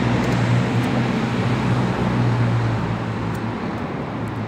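Steady city traffic noise with a low engine hum from a nearby road vehicle, the hum fading near the end.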